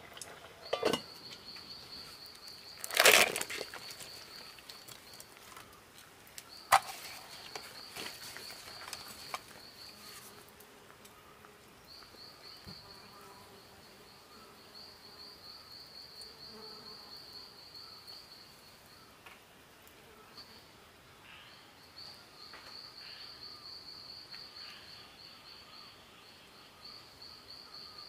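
An insect chirring high and steady in long pulsing trains that break off and start again. A few sharp knocks come in the first ten seconds, the loudest about three seconds in.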